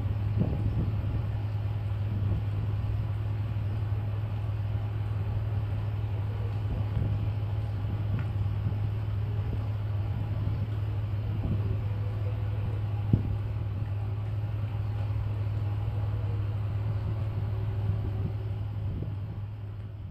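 A ship's engine running steadily, a deep even hum, with a single sharp knock about two-thirds of the way through.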